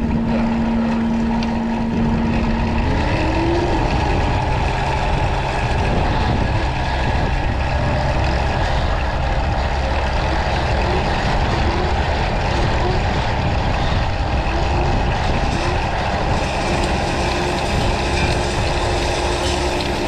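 Caterpillar 289D compact track loader's diesel engine running under load, driving a power box rake's hydraulic rotor through soil. A steady tone from the machine steps up in pitch about three seconds in.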